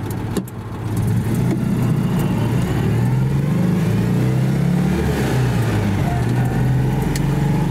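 Citroën 2CV's air-cooled flat-twin engine heard from inside the cabin as the car pulls away and accelerates. The pitch climbs, drops at a gear change about five seconds in, then climbs again.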